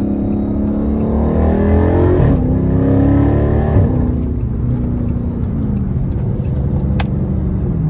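Dodge Charger SRT's V8 heard from inside the cabin, accelerating under power in paddle-shift manual mode. The engine note climbs, drops suddenly at an upshift about two seconds in, climbs again, then eases off lower as the car settles into a cruise. A single sharp click comes near the end.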